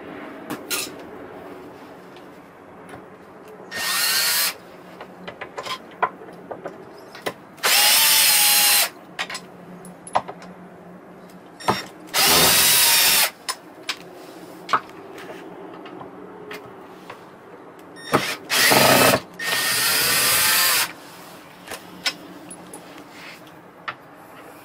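Power drill backing out screws in five short runs of about a second each, its motor whine rising and falling with each run. Light clicks and knocks of handling come between the runs.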